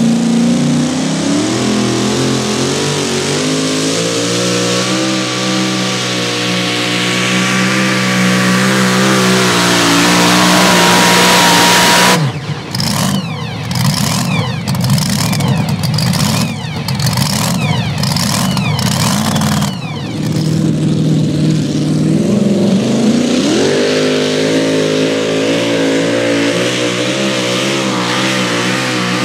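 Supercharged engine of a super modified two-wheel-drive pulling truck running hard under load as it drags the sled, its pitch wavering slowly. About twelve seconds in it turns rough and choppy, crackling for several seconds, and about three-quarters of the way through another supercharged pulling truck's engine revs up.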